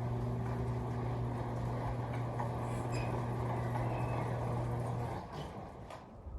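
Garage door opener's electric motor and drive chain running with a steady hum, then stopping about five seconds in.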